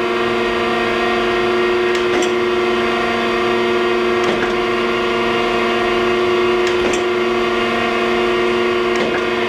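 Thompson hydraulic surface grinder running: a steady hum of several tones from its motors and hydraulic pump, with a faint click every two to two and a half seconds as the table reverses automatically.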